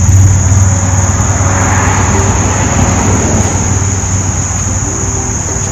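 A passing vehicle's engine noise swells and fades about two seconds in, over a steady low hum and a constant high-pitched insect drone.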